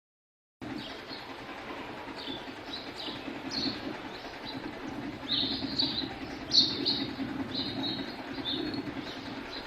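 House sparrows chirping, many short high chirps that come thicker in the second half, over a steady low background rumble. The sound starts after a brief silent dropout.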